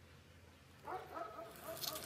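A dog barking several times in quick succession, starting about a second in, over a faint steady low hum.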